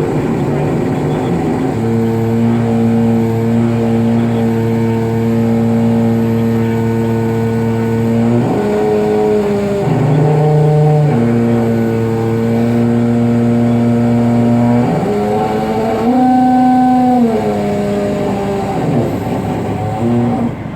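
Hitachi ZX870LC-5G excavator working with a loud, steady droning hum that shifts in pitch several times as it operates. The owner puts this abnormal noise down to newly fitted hydraulic cylinders: it went away when the old cylinders were refitted.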